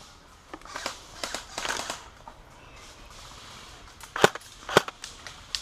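Airsoft guns firing single shots: a scatter of soft clicks and pops, then two loud sharp cracks about half a second apart near the end.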